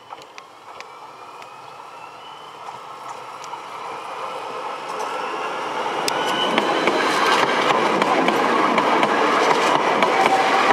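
Alstom Citadis Dualis electric tram-train running slowly along the platform and passing close by, growing steadily louder. Its motors whine in several tones that shift in pitch, over rolling wheel noise with sharp clicks from the track.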